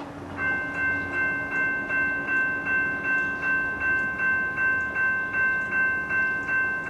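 Railroad crossing signal's electric bell ringing in rapid, even strokes, about three a second, while the crossing gate rises, then cutting off at the end as the gate reaches vertical. The bell should not ring on the gate's rise; the owner puts it down to missing wiring from the XR relay to the gate's bell contact.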